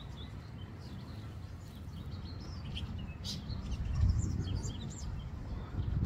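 Several small birds chirping in short, scattered calls, over a steady low rumble that swells briefly about four seconds in.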